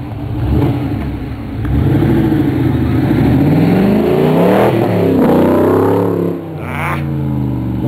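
Mercedes G-Class off-roader's swapped-in BMW V8 revving hard as the truck churns through mud. The pitch climbs and falls several times, loudest in the middle, with a short drop in revs near the end before it picks up again.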